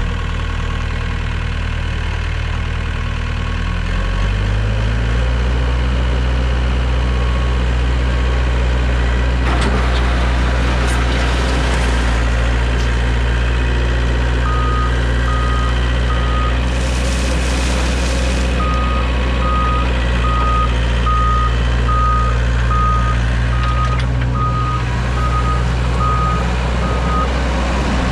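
1996 Scat Trak 1700CX wheeled skid steer's engine running steadily after starting, its speed stepping up about four seconds in. Past the middle, a backup alarm beeps steadily, with a short break between two runs of beeps.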